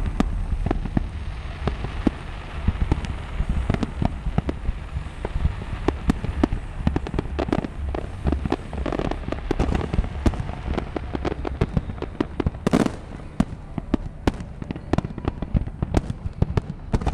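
Fireworks display going off in a rapid, continuous barrage of bangs and crackles over a deep rumble, with a short hiss of a shell going up about two-thirds of the way through.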